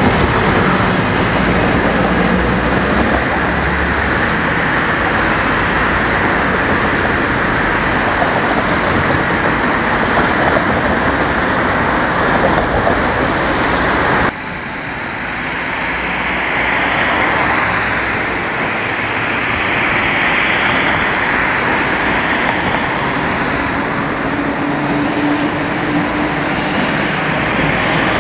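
Steady city street traffic noise as vintage Budapest trams approach along street track. The sound changes abruptly about halfway through, dropping in level, then building again.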